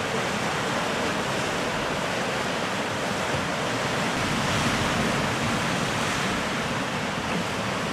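Sea surf breaking and washing over a rocky shoreline, a steady rush of water with no distinct single crashes.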